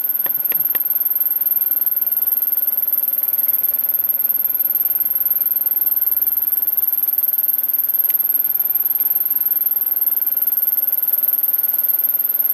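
Millport 2S vertical milling machine running with its cutter cutting across a metal block clamped in the vise: a steady machine hum with a strong constant high-pitched whine over it. A few sharp clicks come near the start, and one more about eight seconds in.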